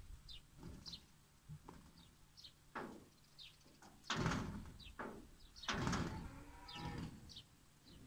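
Birds chirping over and over in short, quick, falling chirps. Several louder rough scuffing noises come in the middle, the loudest about four and six seconds in.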